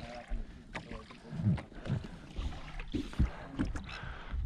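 Small fibreglass boat sitting at anchor, with water moving against the hull, low rumble and several sharp knocks on board. There are brief snatches of voices.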